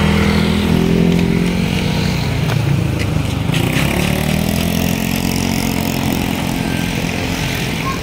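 Motor scooter engines passing close by. One goes by at the start, its engine note falling in pitch, and another passes about halfway through.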